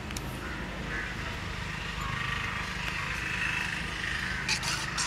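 A steady low background rumble runs throughout. Near the end, a plastic spoon stirring yogurt marinade in a metal bowl gives a couple of short clicks against the bowl.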